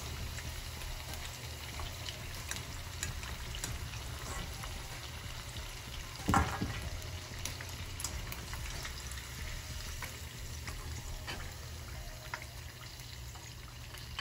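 Batter-coated chicken pieces deep-frying in hot oil in a wok: a steady bubbling sizzle with scattered crackles and pops, and one louder knock about six seconds in as the pieces are lifted out with a metal slotted spatula.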